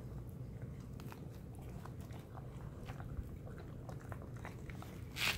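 Renascence Bulldogge puppy chewing and biting on a raw whole tilapia: faint, irregular wet clicks and crunches of teeth on fish and bone. A louder rustling noise comes right at the end.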